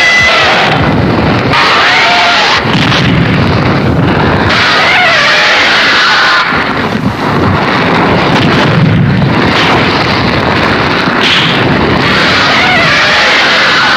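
Fan-made kaiju roar sound effect: a loud, continuous, distorted rumbling roar with warbling cries that rise and fall in pitch, briefly dipping about halfway through.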